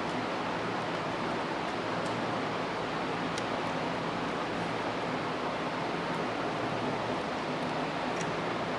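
Steady rushing noise with a faint low hum underneath and a few faint ticks.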